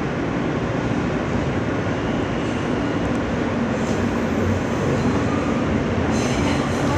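Steady rumble and rush of an R160 subway car running between stations, heard from inside the car. A high wheel squeal begins about six seconds in.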